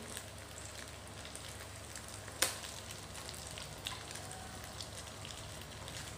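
Tofu cubes frying in shallow oil in a coated pan, the oil sizzling with scattered small crackles as the golden, nearly done pieces are turned and lifted out with a spatula. One sharp tap of the spatula about two and a half seconds in.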